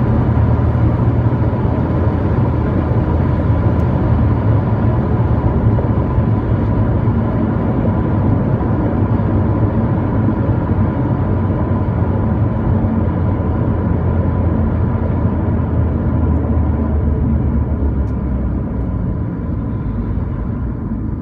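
Car being driven at a steady pace: a steady low rumble of engine and road noise with a faint steady high tone, easing off slightly near the end. No clear clonk stands out.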